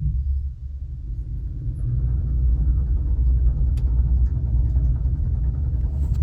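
Low, steady rumble of an automated car park's machinery carrying the car, heard from inside the car, growing a little stronger about two seconds in, with a faint click near the middle.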